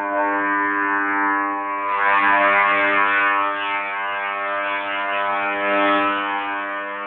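A loud, steady, brassy trumpet-like drone of the kind called a 'sky trumpet' sound, held on one pitch without rising or falling, swelling and growing rougher about two seconds in and easing slightly near the end.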